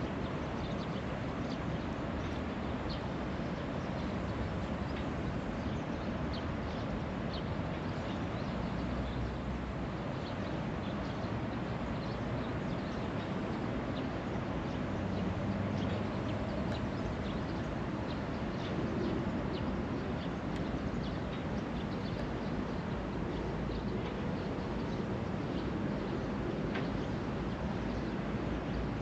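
Outdoor park ambience: a steady low rumble of distant city traffic, with many short, high chirps scattered irregularly throughout.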